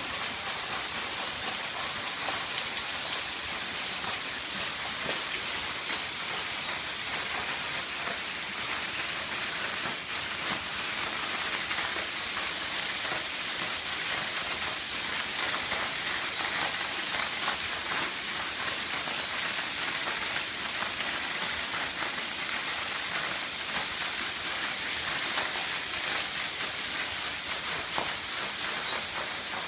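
Waterfall pouring steadily: a constant rushing hiss of falling water.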